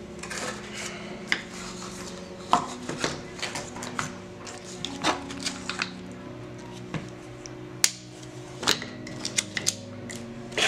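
Scissors snipping the plastic packaging ties off plastic one-hand bar clamps, with clacks of the clamp parts and cardboard box being handled: a series of irregular sharp snips and clicks.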